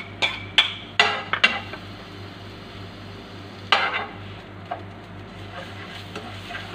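A metal spoon clicking against a non-stick frying pan several times in the first second and a half, then stirring minced ginger in oil over a light sizzle, with one more sharp clink about four seconds in.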